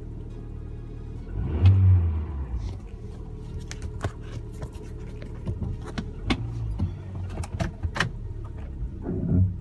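2011 Hyundai Tucson's 2.0-litre four-cylinder engine idling steadily, heard from inside the cabin, running on a newly replaced engine computer. There are scattered sharp clicks and a louder low swell about two seconds in.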